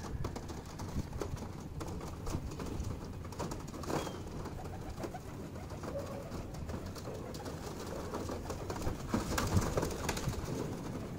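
A flock of feral pigeons cooing, with a brief flurry of wingbeats about nine to ten seconds in as one bird takes off.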